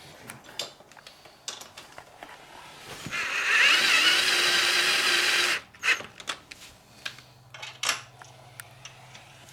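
Electric drill runs for about two and a half seconds, starting about three seconds in, with a wavering whine, cleaning up a freshly drilled hole; it stops abruptly. Small clicks and knocks of handling come before and after it.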